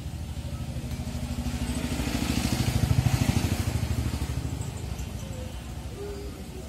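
A motor vehicle's engine passing by, growing louder to a peak about three seconds in and then fading away.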